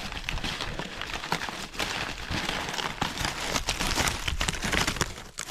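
Old newspaper rustling and crackling as it is handled and pulled out of a concrete-filled cinder block, with many small, irregular crackles.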